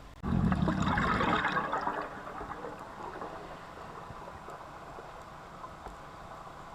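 A sudden gush of rushing, gurgling water that starts abruptly, is loudest for about two seconds, then fades into a low steady background.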